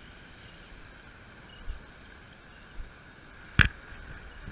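Waves washing through shallow surf with wind on the microphone, a steady noise. Two dull low thumps come a little over a second apart, then a single sharp knock near the end, the loudest sound.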